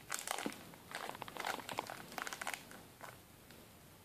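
Clear plastic parts bag crinkling as it is handled, in irregular crackly bursts that stop about two-thirds of the way through.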